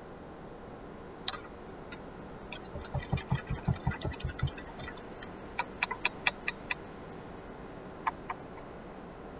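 A paintbrush and painting gear being handled, making small knocks and clicks over a steady hiss: a quick run of about a dozen soft knocks with low thuds, then six sharp clicks at about five a second, then two more clicks near the end.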